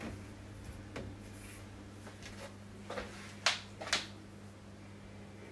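Quiet small room with a steady low hum and a few light taps and clicks, the two loudest about half a second apart just past the middle.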